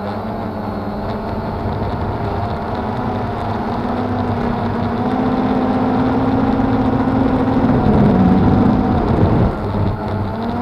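Cheerson CX-20 quadcopter's electric motors and propellers whirring, picked up by its own onboard camera as it lifts off and climbs. The hum grows louder and a little higher in pitch, then eases back about a second before the end.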